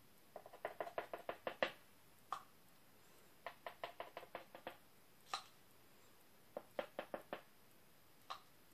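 Quick light taps of a painting tool's tip on the painted tray as purple paint is dabbed onto the petals. They come in three short runs of rapid taps, with single sharper clicks between them.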